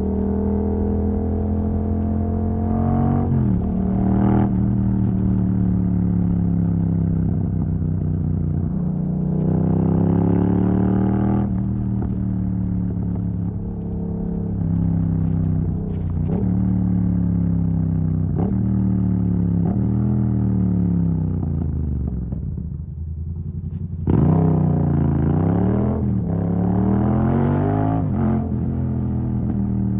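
Yamaha MT-07's 689 cc parallel-twin engine through an exhaust with its dB killer removed, ridden through the gears. The revs climb and cut off sharply at each upshift, about four times. In between they fall away in steps as it slows and shifts down. Shortly after the middle the engine drops almost to idle, then pulls hard again with quick upshifts.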